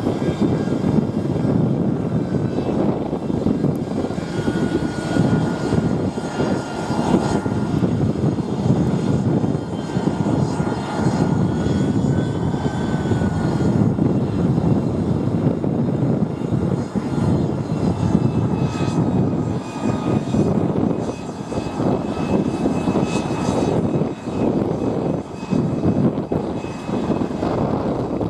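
Aero L-39 Albatros jet trainers' turbofan engines running on the ground at low taxi power: a steady loud rush with a faint high turbine whine that wavers in pitch.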